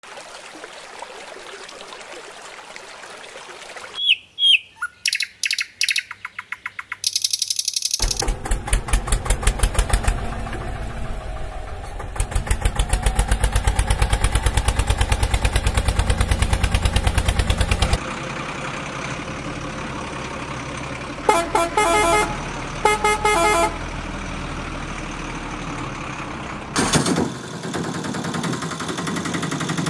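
Rushing water at first, then a series of short horn beeps. After that a vehicle engine sound effect chugs with a loud, even pulse, then runs more steadily, broken by two bursts of horn honks.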